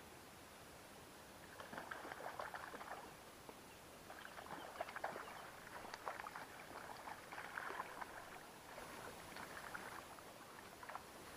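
Water splashing and sloshing close by in irregular bursts, as a hooked trout is brought through the current to a landing net; a single click near the end.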